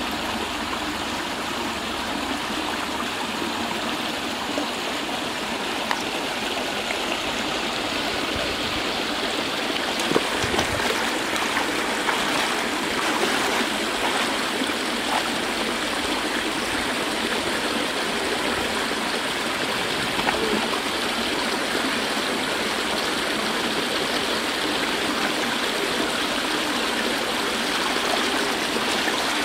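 Water pouring from concrete culvert pipes into a shallow canal: a steady rushing, with a few brief splashes from a person wading through the water.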